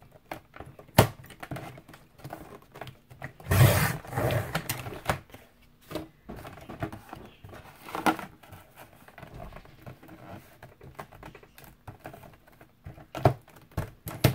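Cereal-box cardboard being handled and cut on a sliding paper trimmer: sharp clicks and short rasping strokes, a longer one about three and a half seconds in and a shorter one about eight seconds in.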